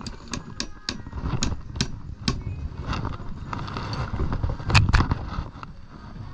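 Hammer driving a nail into a wooden deck board: about seven sharp strikes in the first two and a half seconds, then one louder knock a little before five seconds.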